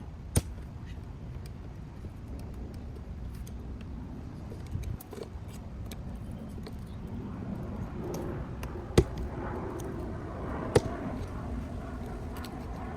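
Hand work on shifter cables: sharp clicks and knocks of a screwdriver and small metal and plastic parts being handled, with rustling between them. One click comes early and two louder knocks come in the second half.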